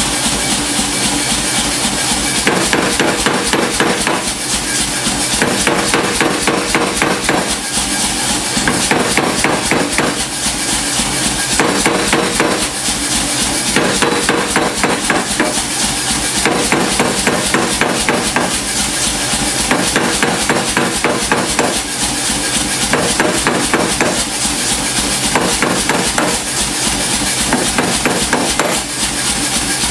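Mechanical power hammer pounding red-hot steel in rapid, continuous blows, forging a scythe anvil block.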